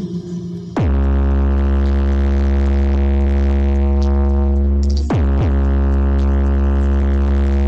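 Electronic music with a heavy, sustained synth bass tone that cuts in about a second in, broken near the middle by a quick downward pitch sweep, played loud through a car sound system.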